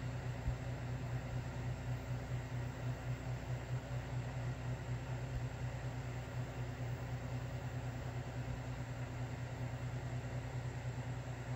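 Steady low machine hum with a constant hiss over it.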